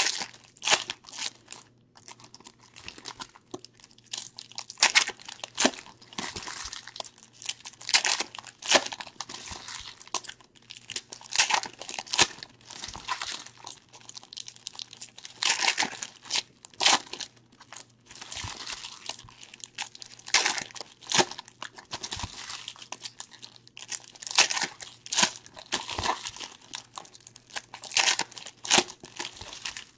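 Foil trading-card pack wrappers being crinkled and torn open by hand, in irregular bursts of rustling.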